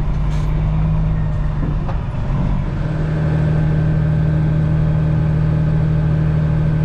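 Heavy diesel engine of a semi truck running steadily. Its hum dips briefly about two seconds in, then settles back to an even, slightly fuller note.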